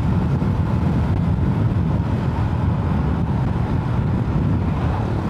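Motorcycle being ridden: the engine runs steadily under continuous wind and road noise on the action camera's microphone.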